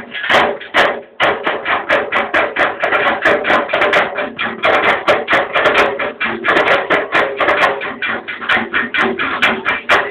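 Kompang frame drums and urumi drums played together as an ensemble, a fast, dense, unbroken run of drum strokes.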